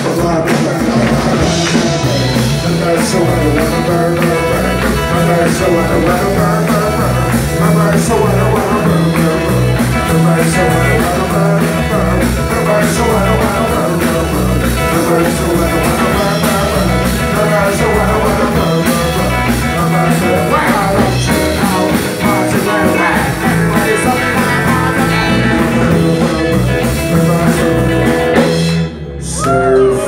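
Live rock band playing a loud surf-rock medley on electric guitar, bass and drum kit, with a steady beat. The music stops abruptly near the end.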